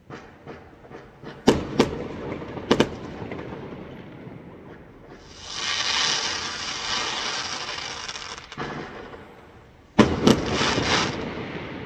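Fireworks going off: small pops, then sharp bangs about a second and a half and three seconds in. A sustained crackling hiss lasts about three seconds in the middle, and another burst of loud bangs and crackle comes near the end.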